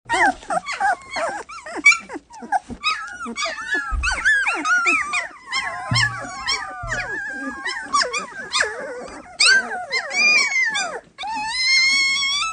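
Samoyed puppies calling in high, wavering cries that overlap one another, with one longer cry rising slowly near the end.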